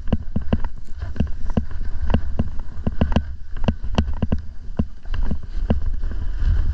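Wind rumbling on the microphone, with a quick, uneven run of sharp knocks, several a second.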